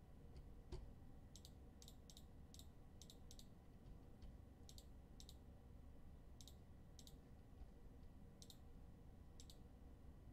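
Near silence with faint, irregular light clicks, many of them in close pairs, over a low steady hum.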